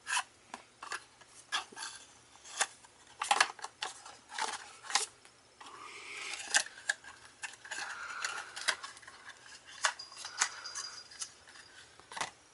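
Hand warmer packaging being handled and opened: a string of sharp clicks and taps, with a stretch of rustling in the middle.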